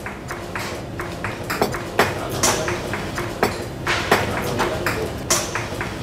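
Quick rhythmic tapping and clinking, several strikes a second, edited into a steady beat over a low steady tone, with now and then a louder, sharper hit that rings brightly.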